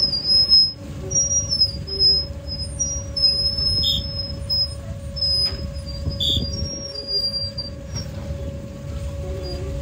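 Fishing trawler's deck machinery and engine running with a steady hum and low rumble, and repeated short, high-pitched wavering squeals on top.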